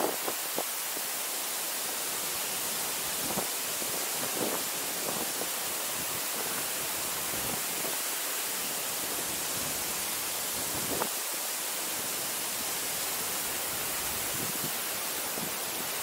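Steady, even hiss of Ōko Falls, a tall waterfall plunging into its pool.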